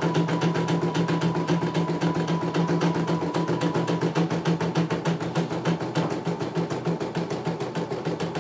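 CNY E900 portable embroidery machine stitching a design: the needle mechanism runs in a rapid, even clatter of about ten stitches a second over a steady motor hum.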